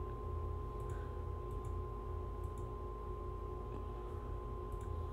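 A handful of faint computer-mouse clicks, spaced irregularly, as a Photoshop adjustment layer is switched on and off, over a steady electrical hum with a faint whine.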